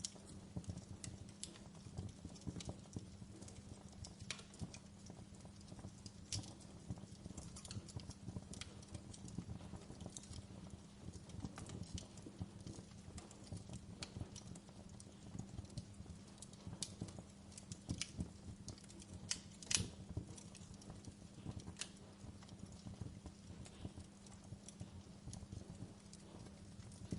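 Fire crackling: constant irregular pops and snaps over a low steady rumble, with one louder crack about twenty seconds in.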